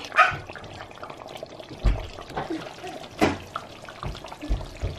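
A pot of thick lamb shank and potato curry bubbling on the hob, with a few louder pops as the sauce spits.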